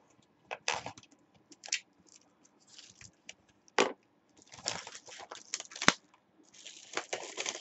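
Trading-card box and its packs being handled and opened: irregular rustling and crinkling of wrappers and cardboard, with a couple of sharp clicks. The rustling grows denser in the second half.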